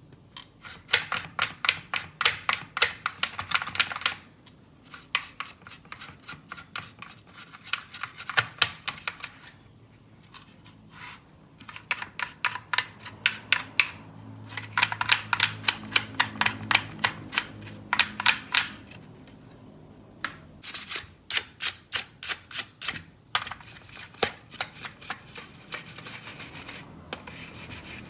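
Quick, rhythmic scrubbing strokes, about six or seven a second, in runs of a few seconds with short pauses between.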